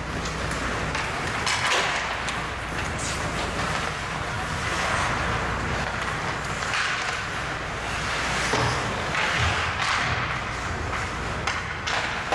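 Ice hockey play: skate blades scraping and carving across the ice, with scattered clacks of sticks and puck.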